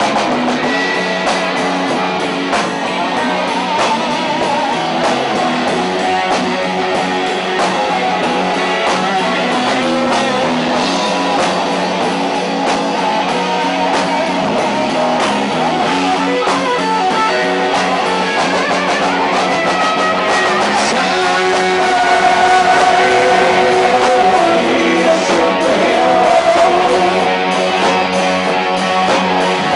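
Rock music: electric guitars, bass and drums, with singing, growing a little louder near the end.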